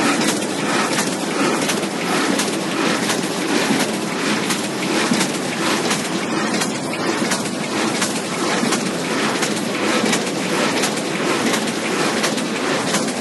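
Automatic flatbed die-cutting machine running: a steady, dense mechanical clatter of rapid clicks and rattles that keeps on without a break.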